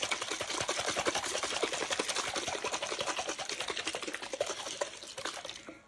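Water being shaken hard in a capped plastic baby bottle: a rapid, steady slosh and rattle that eases off a little near the end.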